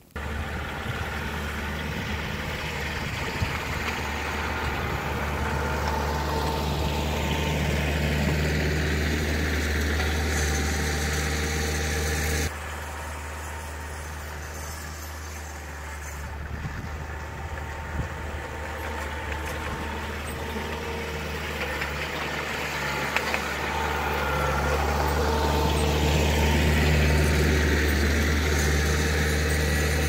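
Kioti compact tractor's diesel engine running steadily with its snowblower as the tractor drives toward the listener, growing louder. About twelve seconds in the sound drops suddenly to a more distant level, then builds again as the tractor comes close.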